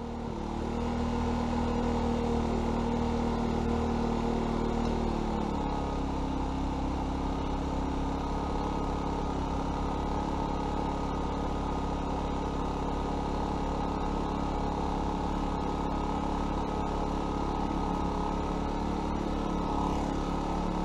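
Sportsman inverter generator's small engine running steadily with the RV power cord connected. About five seconds in, its engine speed drops a step, as the eco mode throttles it down.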